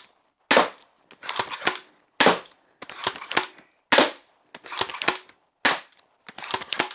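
Steambow Stinger M10 magazine-fed tactical bow shot in quick succession: four sharp shots about 1.7 seconds apart. Each shot is followed by a short run of smaller clacks from cocking the bow and feeding the next bolt from the magazine.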